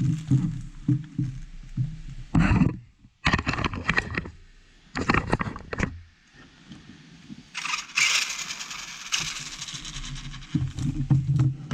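Brushless VXL motor of a 1/16 Traxxas E-Revo RC truck whirring in short throttle bursts, then a longer run of about two seconds near the end. This is the test run showing that the newly soldered battery connector works.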